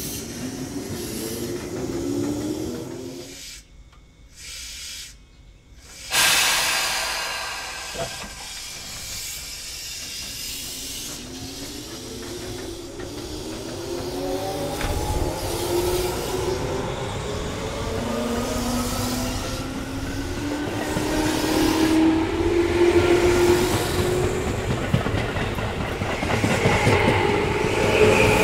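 Tobu 10000 series electric train pulling away, its DC compound traction motors whining in several tones that climb slowly in pitch as it gathers speed, over wheel and running rumble. A sudden loud hiss comes about six seconds in, just after a brief gap.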